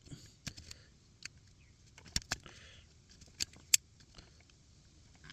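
Scattered sharp metallic clicks of a small handheld wire stripper's jaws snapping shut on electrical wire, the loudest coming in two pairs about two and three and a half seconds in.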